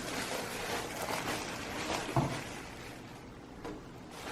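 Handling noises: rustling and scraping with one sharp knock about two seconds in, then quieter.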